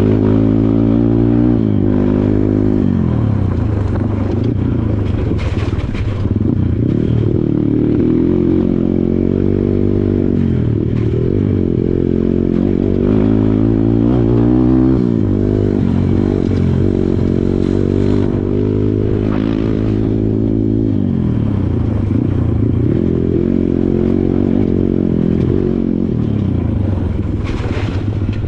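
Kawasaki KLX140 dirt bike's single-cylinder four-stroke engine under load, its pitch rising and dropping again and again as the throttle is worked and gears change, with a few sharp knocks along the way.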